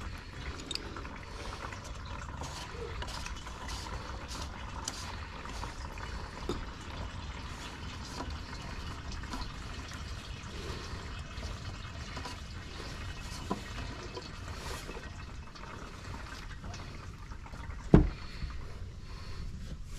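Used engine oil pouring in a steady stream from a Jeep Wrangler's oil pan drain into a plastic drain container. A few small clicks are heard, and there is a single sharp knock near the end.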